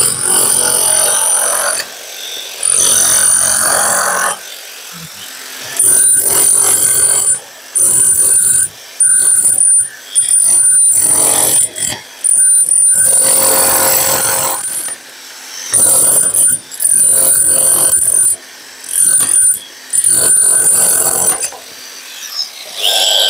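Handheld power tool cutting a channel into a concrete wall for electrical conduit. It runs in repeated bursts of one to two seconds with a high whine, stopping and starting about a dozen times.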